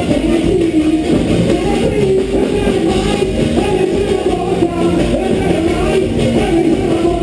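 A live band playing loudly and steadily, with singing over guitar.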